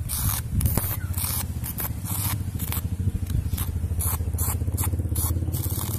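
Irregular scraping strokes, a few a second, over a steady low hum.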